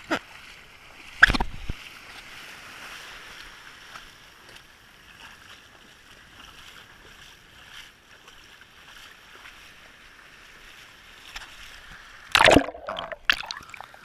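An action camera in its waterproof housing plunged into shallow sea water: a splash and knock going in about a second in, a steady muffled underwater hiss, then loud splashing near the end as it breaks back through the surface.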